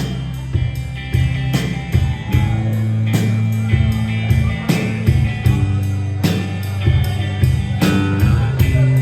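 Live rock trio of guitar, bass guitar and drum kit playing the instrumental intro of a song, with held bass notes under the guitar and drum hits about twice a second.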